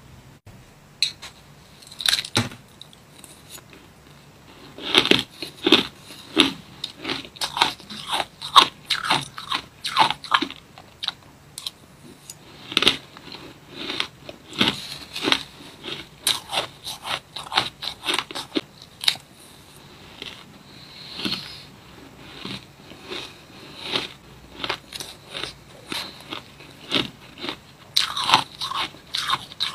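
Mouthfuls of blue shaved ice being bitten and chewed: many crisp crunches coming in irregular clusters, busiest about five to ten seconds in and again near the end.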